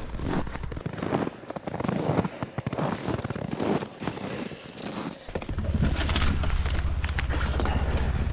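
Irregular crackling noises, then from about five seconds in a snowmobile engine running steadily with a low-pitched drone.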